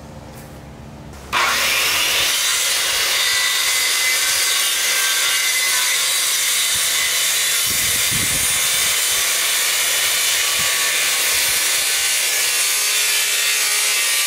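A power tool working wood starts suddenly about a second in and runs steadily without a break, giving an even, hissing noise.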